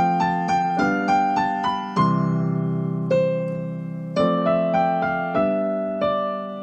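Yamaha digital piano with a piano sound, playing a simple melody of separate notes over held chords, with the chord changing every second or so. The harmony is the three-chord trick: the tune is harmonised with just three major chords.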